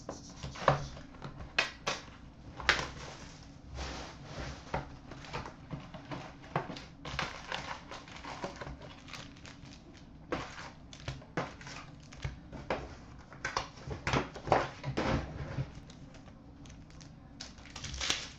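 A 2014-15 Upper Deck Black Diamond hockey card box being cut open and emptied: shrink-wrap and foil packs crinkle and rustle, and cardboard and packs click against a glass counter in many short, irregular bursts.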